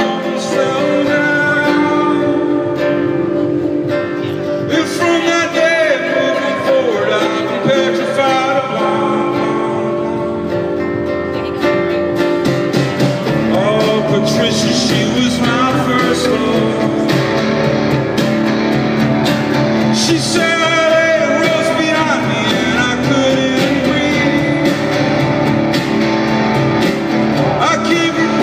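A man singing live while playing a nylon-string classical guitar, the song heard through the stage PA.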